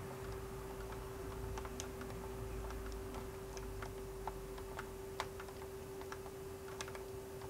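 Irregular clicks of keys being pressed on a Sega SC-3000 computer keyboard, over a steady low hum.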